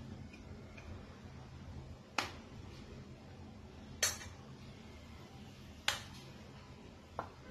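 Four sharp clicks, roughly two seconds apart with the last one weaker, over a faint low hum.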